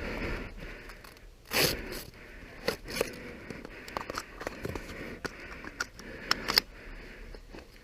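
Close scraping and rustling of clothing and gear as a player moves, with one loud breath about a second and a half in and scattered sharp clicks and crackles throughout.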